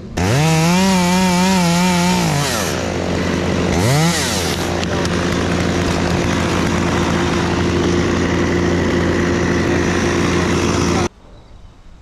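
Chainsaw revved hard with its pitch wavering under load as it cuts, dropping back about two seconds in, revved briefly once more, then running steadily at a lower pitch until it cuts off abruptly near the end.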